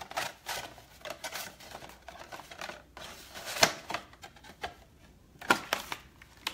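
Cardboard box and small sample packets being handled and emptied: irregular rustling and clicking, with sharper knocks about three and a half seconds in and again about five and a half seconds in.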